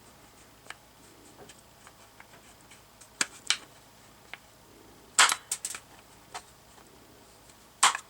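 Sharp clicks and snaps of hand tools cutting and shaving PEX tubing close to a brass fitting. They come in a handful of separate cracks, the loudest about five seconds in.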